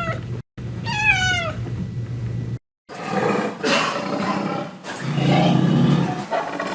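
A domestic cat meowing: two falling meows in the first second and a half. After a brief break, a rougher, noisier animal call follows and runs on to the end.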